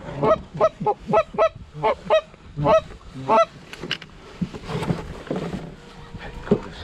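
A quick series of about a dozen goose-like honks over the first three and a half seconds, then quieter background noise.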